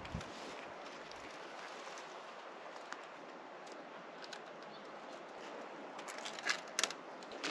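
Light rustling and clicking of spruce poles and branches as split fish are handled and hung inside a tipi smokehouse, over a steady faint hiss. A cluster of louder rustles and clicks comes near the end.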